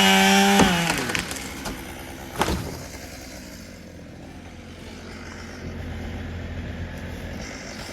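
A chainsaw revving up to full throttle, then releasing and winding down within the first second. A sharp wood crack sounds about two and a half seconds in, and a low engine runs steadily after it.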